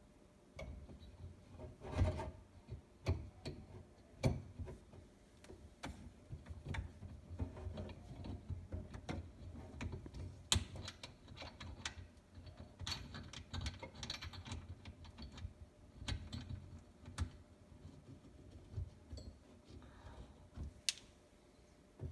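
Irregular clicks, taps and knocks of metal sink-strainer parts and tools being handled and screwed together, with a few sharper knocks standing out.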